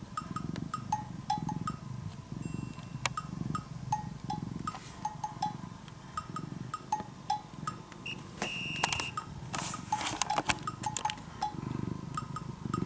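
A domestic cat purring close to the microphone, a low rumble that swells and fades about every one and a half seconds with its breathing. Light, bouncy background music of short wood-block-like notes plays over it.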